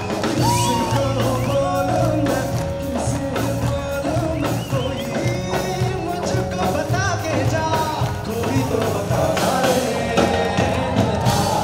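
A group of male singers performing a song live into microphones over a steady beat made by beatboxing, as an a cappella-style Bollywood song mashup.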